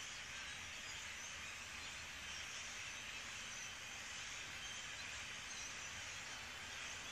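A large flock of European starlings chattering together in the treetops, making a steady, dense wash of high-pitched sound with no single call standing out.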